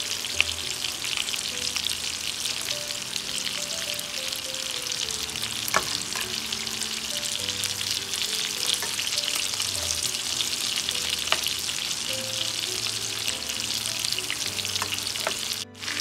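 Ribeye steaks sizzling in hot fat in a frying pan, with metal tongs clicking sharply against the pan a few times as garlic is rubbed over the meat.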